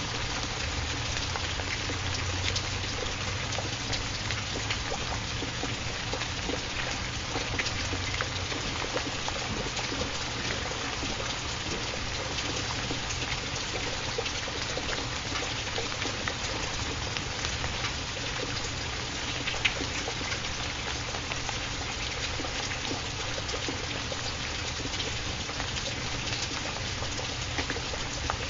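Steady rain: an even hiss with many small scattered drop ticks.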